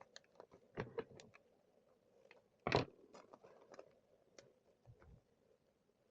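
Small shock-absorber parts being handled on a work surface: scattered light clicks and taps, with a cluster about a second in and one louder knock near three seconds in.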